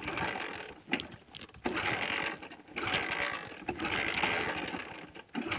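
Hero Honda Splendor single-cylinder engine being cranked over in repeated start attempts of about a second each, with short pauses between them. It is being tried on hand sanitizer fed into the air intake in place of its fuel.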